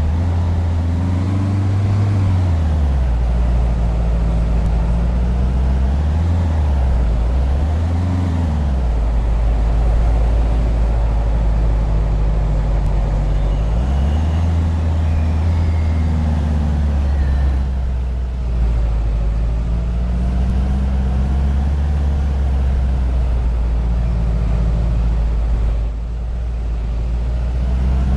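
A vehicle's motor running steadily, its pitch rising and falling several times as it speeds up and slows down.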